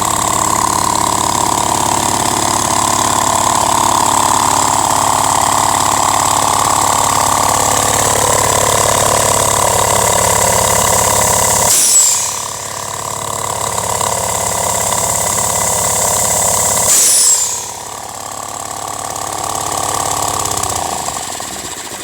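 Wisconsin AHH single-cylinder engine running the Lindsay V-twin air compressor bolted to its crankshaft, a steady pounding beat. Twice, about twelve and seventeen seconds in, a short sharp burst sounds, and the sound is quieter and thinner after each.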